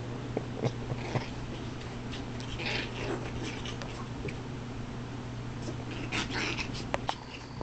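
Small puppies play-fighting: little growls and whiny yips with scuffling, and a few sharp knocks, over a steady low hum.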